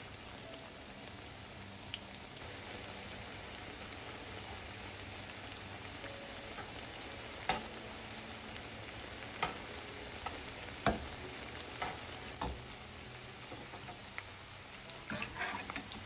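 Piyaju (lentil-and-onion fritters) sizzling steadily as they deep-fry in a pan of hot oil. From about halfway through, a metal slotted spatula clicks and taps against the pan as the fritters are turned.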